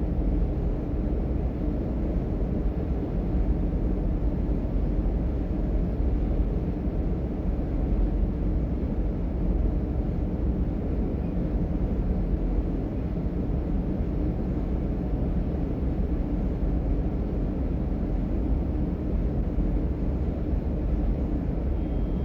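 Inside a class 425 electric multiple unit running between stations: a steady low rumble of the ride with a faint hum, unchanging in level.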